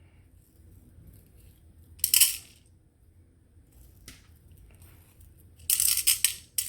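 Small green crystal beads clattering and clinking as they are handled and scooped up, in three short bursts: one about two seconds in, a brief one near four seconds, and a longer rattle near the end.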